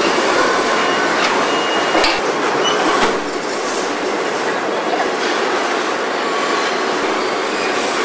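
Steady machinery noise of a robotic car-body assembly line, with sharp metallic clanks about two and three seconds in and brief high squeals.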